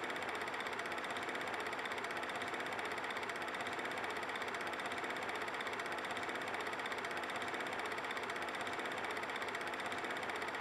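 Simulated 8mm film projector sound: a steady, fast mechanical clatter and whir that runs on without change.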